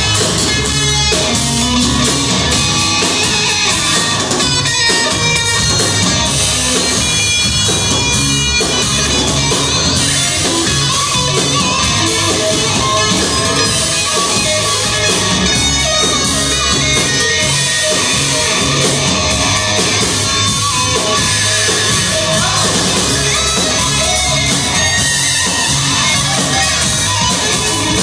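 Live hard-rock band playing loudly, guitars leading over bass and drums.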